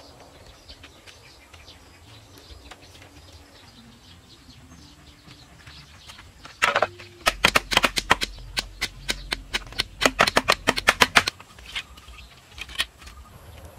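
Rapid run of sharp knocks from bamboo being worked by hand, several a second for about five seconds starting halfway through, with one or two single knocks near the end. Quiet outdoor background before them.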